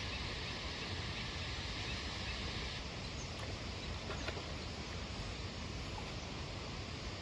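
River water running, a steady rushing noise; its hissier upper part drops away about three seconds in.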